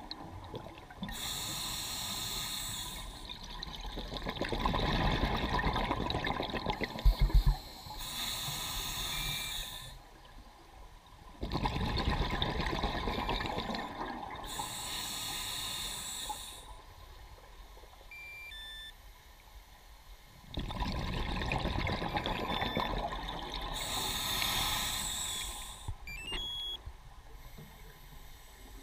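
Scuba diver breathing underwater through a regulator: about four slow breath cycles of regulator hiss and rushing exhaled bubbles. There is a short, loud knock about seven seconds in.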